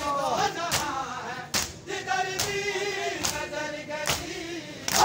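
A crowd of men chanting a noha (mourning dirge) together. Sharp slaps of hands striking bare chests in matam keep time about every 0.8 seconds.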